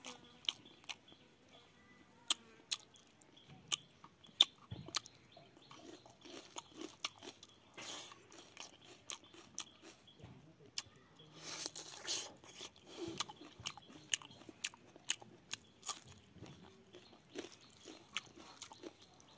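Close-up mouth sounds of a person eating rice and boiled pork with his fingers: chewing, with many scattered sharp clicks and smacks and a few longer noisy spells.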